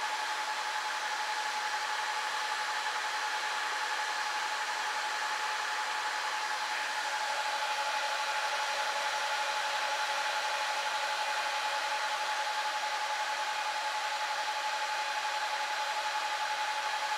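Dell PowerEdge 2650 server's cooling fans blowing strongly: a steady rush of air with a constant whine, growing slightly louder about seven seconds in.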